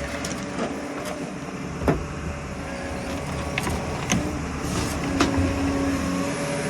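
Sany 265 tracked excavator running steadily as it walks slowly on its tracks, with a couple of sharp clanks from the tracks or trailer deck.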